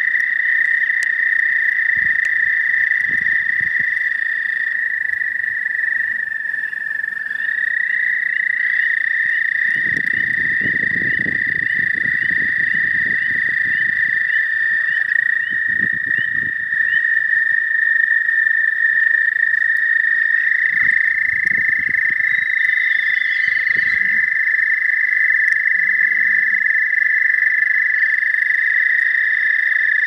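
Chorus of toads: several long, steady trills overlap at slightly different pitches without a break. Low rustling from a dog nosing through the ground litter comes in underneath, strongest about ten to twelve seconds in.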